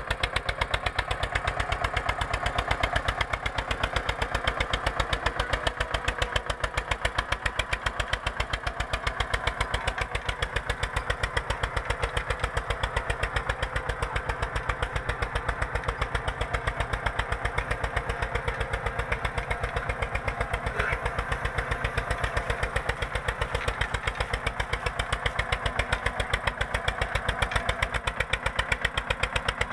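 Eicher 242 tractor's single-cylinder diesel engine running steadily under load with an even, rapid exhaust beat as it pulls a 16-disc harrow through the soil.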